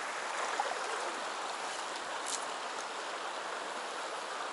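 Shallow river riffle running over rocks: a steady rush of flowing water.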